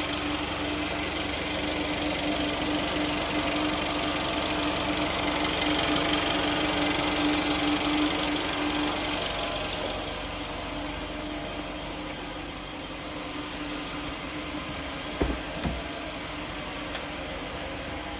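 Mercedes-Benz A180's turbocharged four-cylinder engine idling steadily with a newly fitted map-controlled thermostat. A steady whine in the engine noise fades out about halfway through, and a couple of short knocks come near the end.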